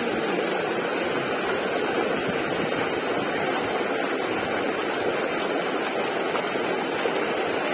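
Fast-flowing muddy floodwater rushing and churning in white water, a steady, unbroken rush.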